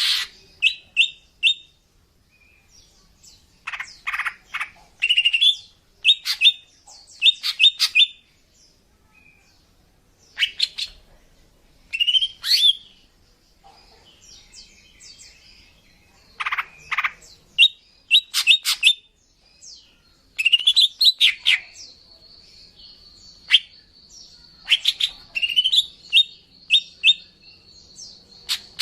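Female green leafbird (cucak ijo) calling: clusters of quick, high chirps and short rising whistles with brief pauses between them, the calls used as a lure to draw in males. A thin steady high tone runs under the calls through the last third.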